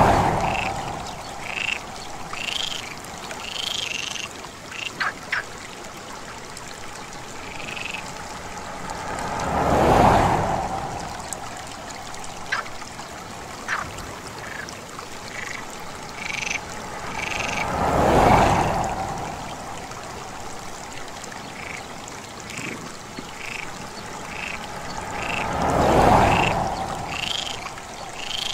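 Frogs calling in a chorus of short, repeated croaks. About every eight seconds a rush of noise swells up and fades away over a couple of seconds, louder than the frogs, four times in all.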